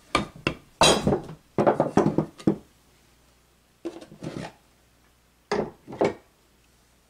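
Wooden blocks and hand tools being handled on a wooden workbench: a run of knocks and clatters over the first two and a half seconds, then two shorter clatters about four and six seconds in.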